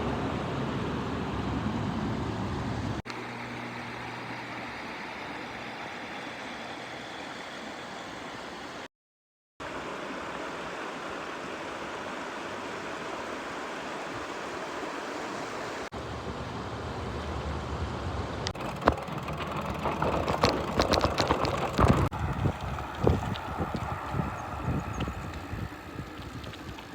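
Steady outdoor noise from a bike ride, a hiss of wind and rolling, broken into several short clips that cut abruptly. In the second half a quick run of knocks and rattles comes through over the hiss.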